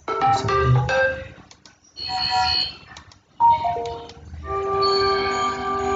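Samsung Galaxy S21+ notification sound previews: three short melodic chimes one after another as different sounds are selected, the last a few falling notes that settle into a held chord.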